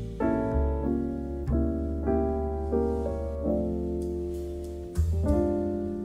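Background music: a piano playing a slow melody of single struck notes over a low held bass.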